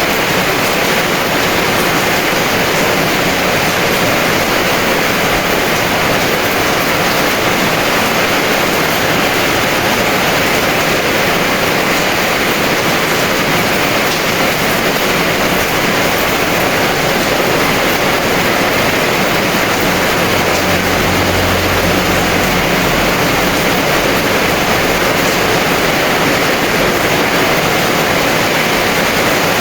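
Heavy rain falling as a steady, dense hiss. About two-thirds of the way through, a brief low rumble swells under it for a couple of seconds.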